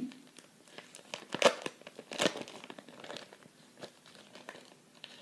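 Thin craft paper sheets crinkling and rustling as they are handled and pulled out, a string of irregular crackles with two louder ones about a second and a half and just over two seconds in.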